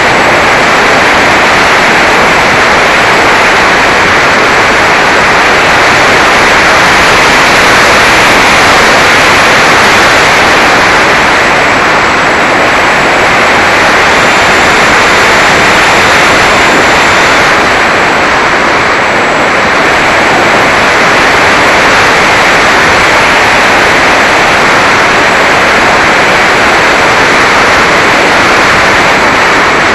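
Steady, loud rushing of airflow and pusher propeller on an action camera's microphone aboard a Mini Talon RC plane in flight.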